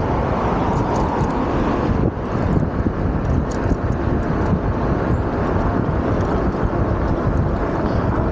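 Steady, loud rush of wind buffeting the camera microphone on a moving electric bike, with no clear tones in it.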